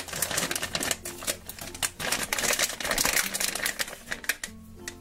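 A foil blind-bag packet being torn open and crinkled by hand: a rapid, irregular run of crackles and clicks that dies away about four and a half seconds in.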